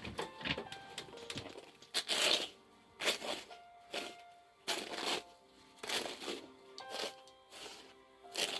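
Background music: sustained notes over a beat that strikes about once a second.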